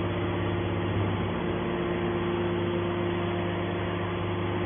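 Hydraulic scrap metal baler running, a steady machine drone holding a constant pitch.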